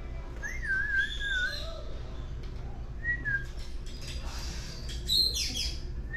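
Amazon parrot whistling in short phrases: a wavering whistle about half a second in, a short two-note whistle about three seconds in, and a harsher sliding call near the end.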